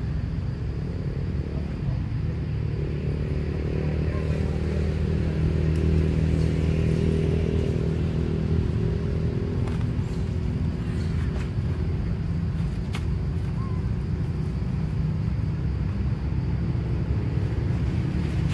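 Steady low drone of an engine running, a little louder in the middle, with a few faint clicks.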